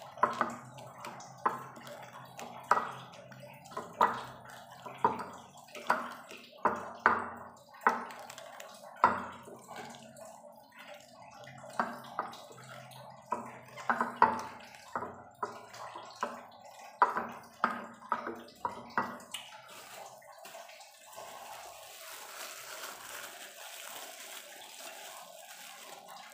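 Green chilies being crushed by hand in sambal on a plastic plate: wet crushing strokes about once a second, faster and more clustered after about twelve seconds. The crushing stops about nineteen seconds in, leaving a faint steady hiss.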